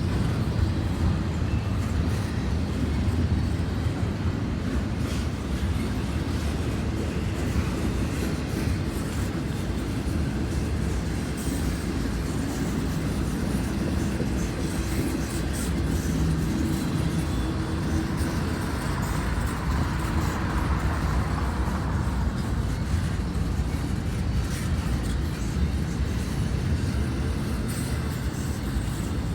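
Intermodal freight train rolling slowly past, a steady low rumble of wheels on rail.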